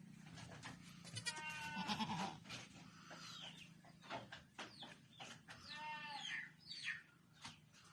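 Newborn Boer goat kids bleating: two longer, high-pitched bleats about a second in and about six seconds in, with shorter calls and small rustling clicks between them.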